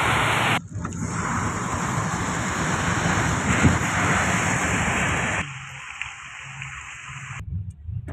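Car driving on a rain-soaked road: a steady hiss of tyres on wet asphalt mixed with wind noise. The sound drops abruptly quieter about five and a half seconds in and again near the end.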